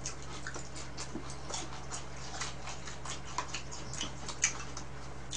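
Eating sounds: chewing and lip-smacking, with light irregular clicks of chopsticks against plastic food containers and bowls, over a steady low hum.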